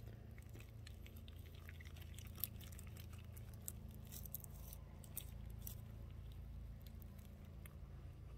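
Faint sticky squelching and small clicks of thick wheel-bearing grease being pressed and rolled by gloved hands into a tapered roller wheel bearing, over a steady low hum.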